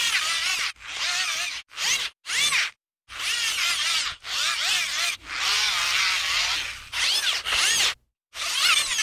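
A hand-cranked device worked close to the microphone, giving a mechanical whirring whose pitch keeps sweeping up and down as the cranking speeds and slows. It comes as about nine short takes, each under a second or so, cut apart by brief silences.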